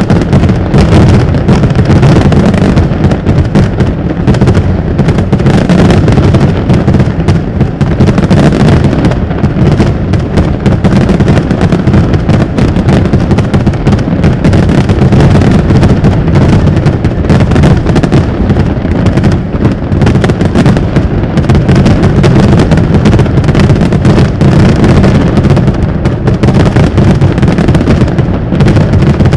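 Large fireworks display in full barrage: loud, continuous booms of aerial shells bursting one over another, with crackle on top and no break.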